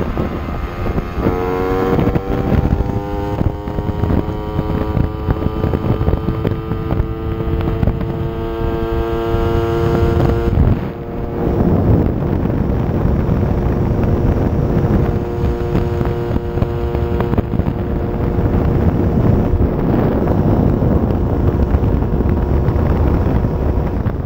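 Small two-stroke moped engine under way, its note climbing as it accelerates. The note dips briefly about eleven seconds in, then holds steady at speed. Wind rushes over the microphone throughout.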